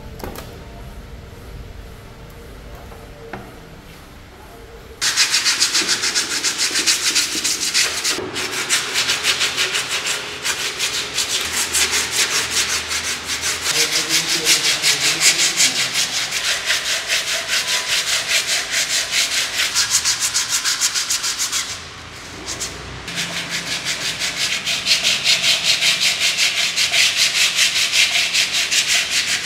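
Sandpaper rubbed back and forth by hand over body filler on a plastic motorcycle fairing panel, in quick, even strokes. The sanding starts about five seconds in, stops briefly, then carries on.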